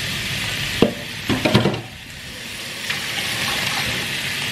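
Minced meat and onions sizzling in a frying pan, with a few sharp clacks of a utensil stirring them a little after a second in. The sizzle drops briefly near the middle, then picks up again.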